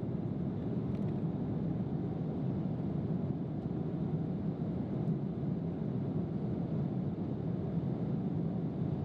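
Steady low drone inside an Airbus A330-300's cabin in flight: engine and airflow noise heard from an economy seat.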